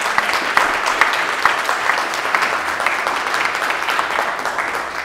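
Audience applauding, a dense run of many hands clapping that eases off slightly toward the end.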